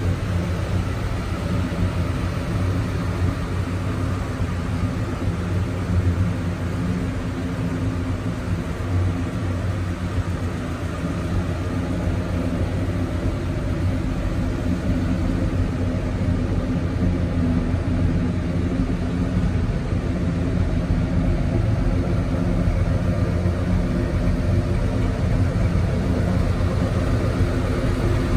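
1979 Ford F-250 Ranger XLT pickup's engine idling steadily, a low even drone that grows slightly louder near the end.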